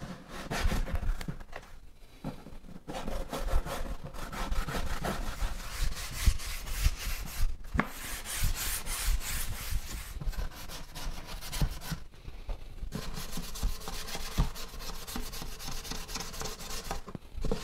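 Hand sanding of a resin-coated sink mould insert with a 320-grit sanding pad: scratchy rubbing in quick back-and-forth strokes, with a few short pauses.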